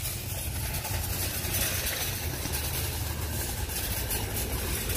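Metal shopping cart rolling over asphalt, a steady low rumble.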